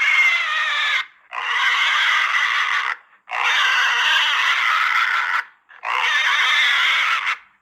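An animal squealing: four long, high-pitched squeals, each lasting one to two seconds, with short breaks between them.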